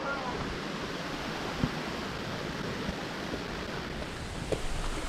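Steady rush of flowing water from a jungle stream or waterfall, with a few faint knocks.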